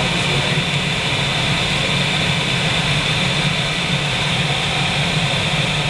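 Steady rush of airflow around the canopy of a sailplane gliding in flight, with no engine.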